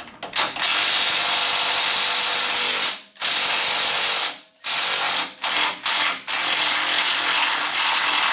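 Cordless impact driver, on a 15 mm socket and long 3/8 extension, hammering loose a sway bar bushing bracket bolt. It runs in long bursts with brief stops, gives two short blips about five to six seconds in, then runs long again.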